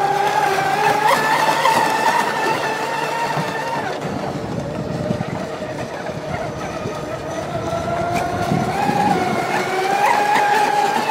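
Twin brushless electric motors of an RC catamaran speedboat running at speed: a high-pitched whine that drops in pitch about halfway through and climbs again near the end, over a steady hiss.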